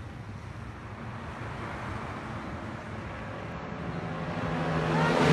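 Highway traffic noise with a truck going by, then an approaching engine growing steadily louder near the end.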